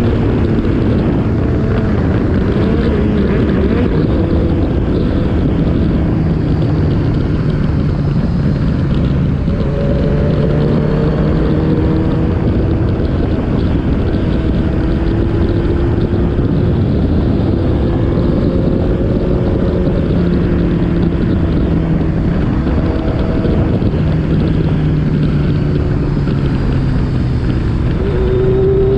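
Motorcycle engine pulling under load, its pitch climbing slowly through each gear and dropping back at several gear changes, over steady wind noise.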